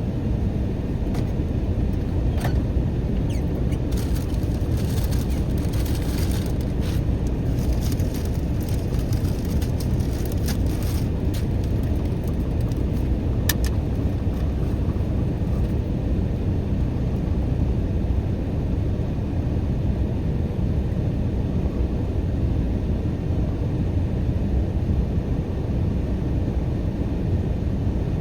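Stopped car's engine idling, heard from inside the cabin as a steady low rumble. Scattered faint clicks and knocks come between about four and eleven seconds in, and one sharp click a couple of seconds later.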